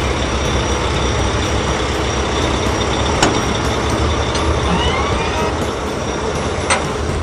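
Cartoon sound effect of a heavy vehicle's engine running steadily with a deep rumble, with a couple of sharp clanks, one about three seconds in and one near the end, and a faint rising squeak midway.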